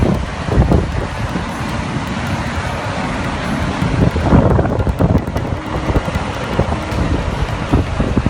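Wind buffeting the microphone over the noise of road traffic, a dense rumbling roar that rises and falls unevenly.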